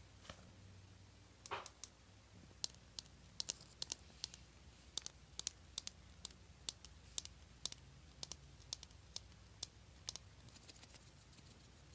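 Sharp, irregular plastic clicks, a few a second, as fingers and nails work the lid of a small clear plastic tub of red glitter, after a brief swish about a second and a half in.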